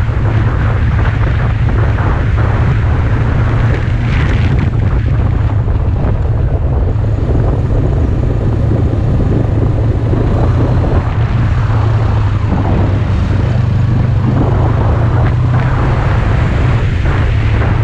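Wind rumbling and buffeting on the microphone of a moving sport motorcycle, with the bike's engine running steadily underneath.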